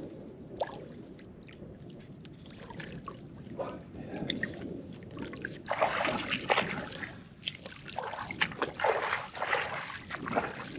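Footsteps wading through shallow water, splashing and sloshing unevenly, getting heavier about halfway through.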